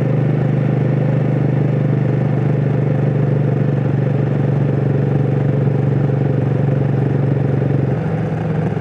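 Royal Enfield Himalayan 450's single-cylinder engine and exhaust running steadily under load at about 5000 rpm while cruising around 100 km/h, the note shifting slightly near the end.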